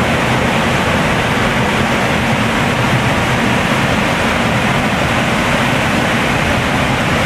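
Steady, loud rush of water pouring over Sandstone Falls, a waterfall on the Black River.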